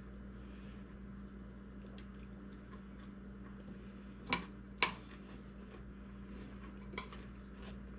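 A spoon clinking against a cereal bowl three times, about four, five and seven seconds in, over a faint steady hum.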